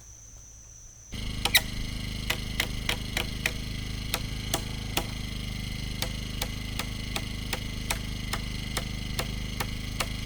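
A machine's motor running steadily with a regular clicking over it, starting abruptly about a second in.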